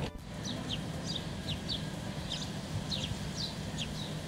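Small birds chirping: short, high, falling chirps, about three a second, over a faint steady low hum.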